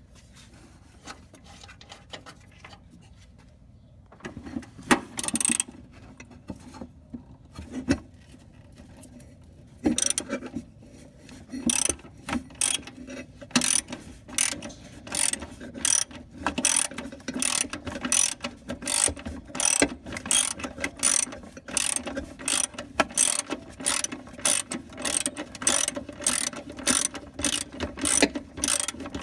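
A hand ratchet clicking, worked back and forth to turn a fastener. A few scattered clicks early on, then from about ten seconds in a steady run of short ratcheting strokes, about two a second.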